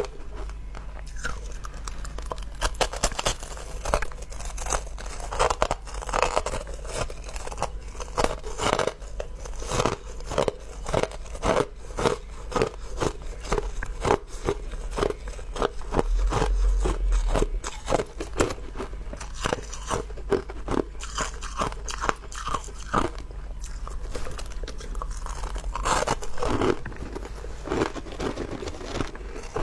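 Crushed ice packed into balls being bitten and chewed, a steady run of sharp crunches one after another.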